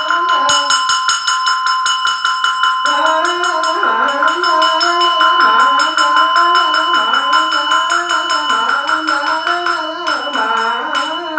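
A Buddhist monk chanting a Vietnamese liturgy in a slow, rising-and-falling melody over rapid, evenly spaced percussion strikes and a steady ringing tone. The chanting pauses for a couple of seconds near the start while the strikes carry on.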